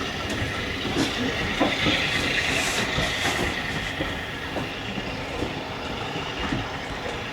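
Train running along the rails, with a steady rumble and hiss and scattered faint clicks of the wheels over the track.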